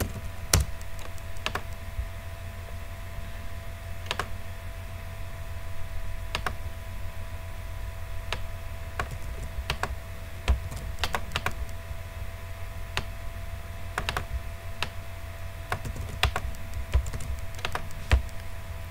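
Computer keyboard keystrokes and mouse clicks, scattered and irregular with a few quick runs, over a steady low hum.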